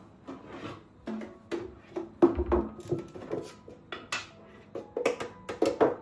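Kitchenware being handled: a quick, irregular run of clinks and knocks, the loudest a heavier knock a little over two seconds in.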